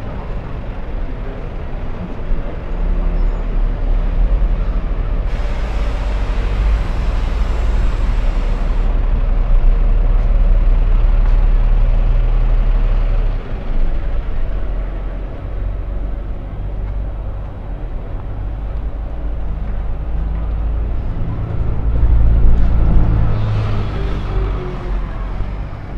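Street traffic: the low engine rumble of passing heavy vehicles runs throughout. A loud hiss lasts about three seconds a few seconds in, and an engine swells louder near the end.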